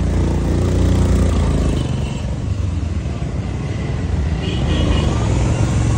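Single-cylinder Bajaj CT100 motorcycle engine running while being ridden, with road and wind noise. A steady engine hum is clearest in the first couple of seconds, then the rushing road noise takes over.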